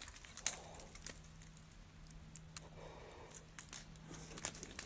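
Faint, scattered scratching and clicking of a black bear's claws gripping tree bark as it climbs, over a faint low steady hum.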